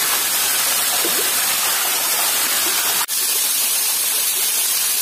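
Waterfall rushing steadily, a dense hiss of falling water, broken by a momentary drop-out about three seconds in.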